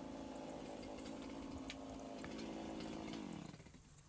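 Small Stihl chainsaw engine running steadily and faintly at idle. About three and a half seconds in, its pitch drops and it dies away as the engine winds down and stops.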